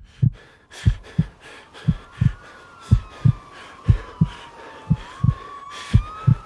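Heartbeat sound effect: pairs of low thumps, about one pair a second, with a thin high tone sliding slowly down and back up behind them.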